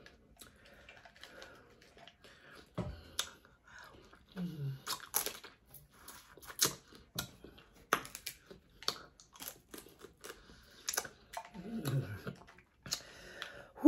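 Dungeness crab shell cracking and being picked apart: a run of sharp, irregular clicks and snaps, with a couple of brief murmurs from the eater.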